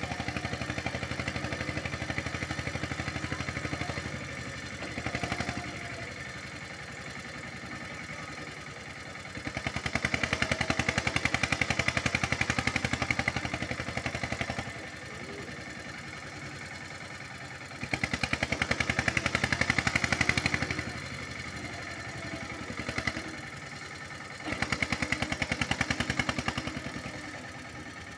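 Eicher 241 tractor's single-cylinder diesel engine running with rapid, even exhaust beats. It is revved hard three times for a few seconds each and drops back in between, straining to pull its trailer out of soft, rain-soaked ground.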